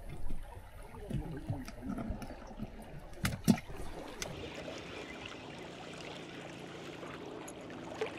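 Sea water washing and lapping against the rocks of a seawall, with a couple of sharp clicks about three and a half seconds in as fishing tackle is handled at a plastic tackle box.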